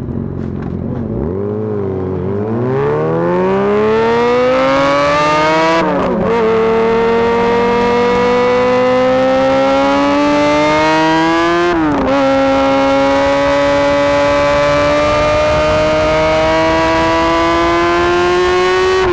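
2003–05 Yamaha YZF-R6's 600 cc inline-four engine accelerating hard from a standstill, its pitch climbing steeply through the gears. There are two upshifts about six seconds apart, each a sudden drop in pitch before the engine climbs again.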